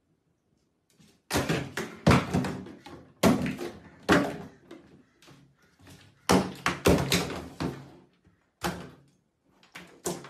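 Plastic shampoo and toiletry bottles, knocked off a bathtub ledge by a small dog, thunking one after another into the empty tub: about ten irregular knocks, some in quick pairs, with a rattle as they settle.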